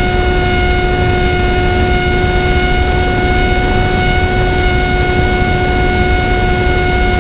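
Electric motor and propeller of an FPV racing wing, heard from its onboard camera, holding one steady whine at wide-open throttle, over the rumble of wind across the microphone.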